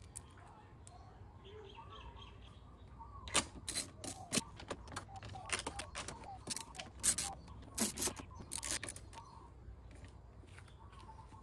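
Scattered sharp metal clicks from about three seconds in until near the end, as grab-rail bolts are set in place and worked with a 3/8-drive ratchet and extension. Faint birdsong behind.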